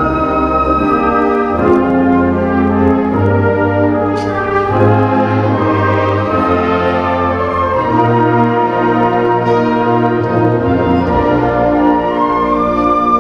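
A youth concert band playing, French horns, trumpets and clarinets together in held chords that move from note to note.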